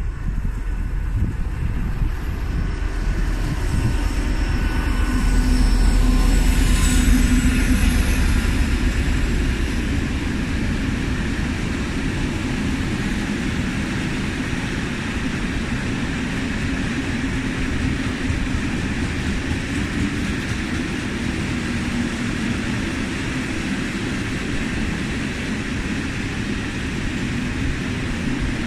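Freight train passing at close range: a BR232 diesel locomotive rumbles by, loudest about six or seven seconds in. A string of coal wagons follows, rolling past with a steady noise for the rest of the time.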